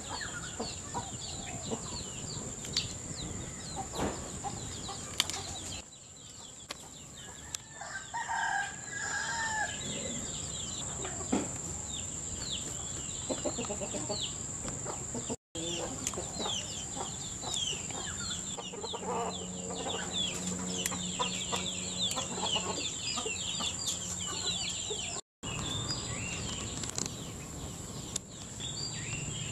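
Chickens clucking and a rooster crowing, over a steady high insect drone and many short chirps. The sound cuts out briefly twice.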